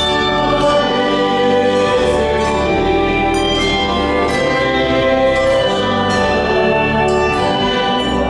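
Church music during a vespers service: steady sustained chords over low bass notes, the harmony changing every second or two.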